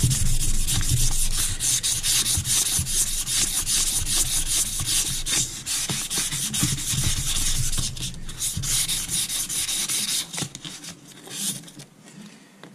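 Fine wet-and-dry abrasive paper wrapped around a Rover 3.5 V8 crankshaft journal, rubbed rapidly back and forth by hand to give the journal a finishing polish. The strokes come thick and fast, thin out after about eight seconds and stop near the end.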